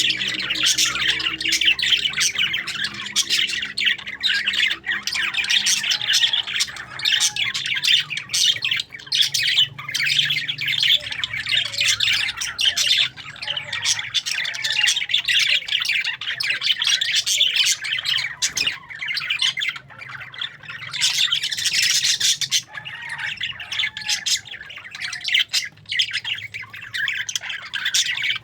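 A flock of parakeets chattering and squawking, many overlapping chirps without a break.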